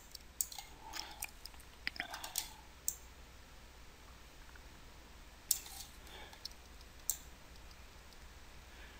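Faint, scattered clicks of a computer mouse and its scroll wheel as a document is scrolled: a cluster of clicks over the first three seconds, then two single clicks later on.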